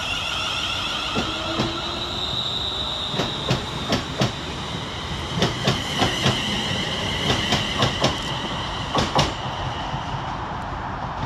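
West Midlands Railway Class 350 Desiro electric multiple unit pulling away from the platform with a steady high whine. Pairs of sharp wheel clicks come over the rail joints and stop near the end as the last car passes.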